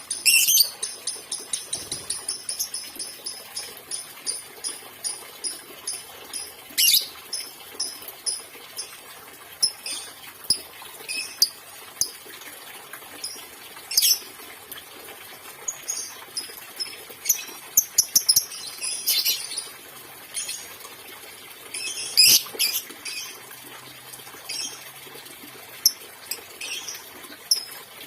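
Lovebirds chirping: a quick run of shrill, high chirps at first, then scattered sharp chirps and short clusters of calls.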